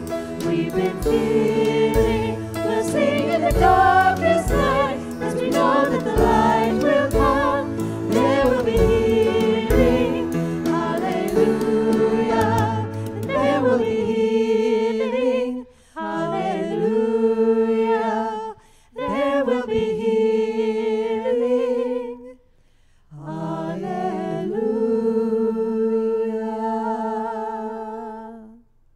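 Church praise band closing a worship song: singing over drums and band for about the first half. After that the voices hold long chords with vibrato in four phrases separated by short breaks, the last fading out near the end.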